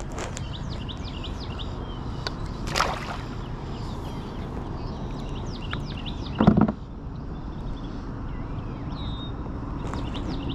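Water sloshing around a fishing kayak with small birds chirping, and a single thump about six and a half seconds in.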